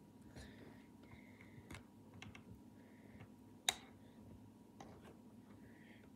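Faint scattered clicks and rustles of a coiled mouse cable being handled as its twist tie is taken off, with one sharper click a little past halfway.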